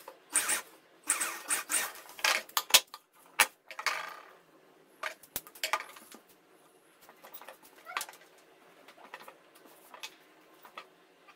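Cloth being handled and shifted at a sewing machine: rustling with a few sharp clicks and clinks in the first four seconds, then only faint scattered taps.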